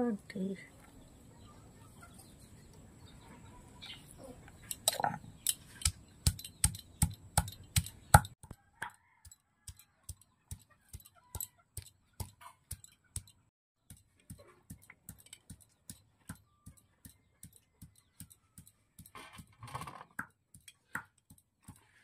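Cylindrical stone pestle crushing food on a stone grinding slab: a few hard, irregular knocks, then steady lighter knocks about twice a second.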